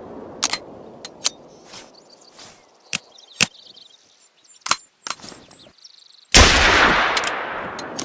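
Single-shot pistol: a few sharp metallic clicks of the gun being handled, then one loud shot about six seconds in that echoes away slowly.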